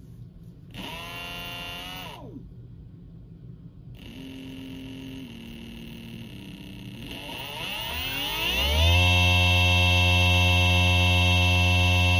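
Electric motor from a throttle-and-controller motor kit spinning with no load. It whirs up and back down briefly about a second in, then hums quietly. From about seven seconds its pitch rises as it speeds up, settling into a loud, steady hum with a high electric whine.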